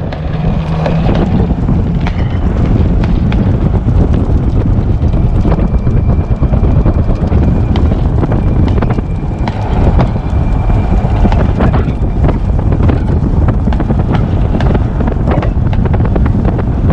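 Wind buffeting the microphone and the low rumble of an open golf cart driving along a street, with scattered sharp clicks and knocks throughout.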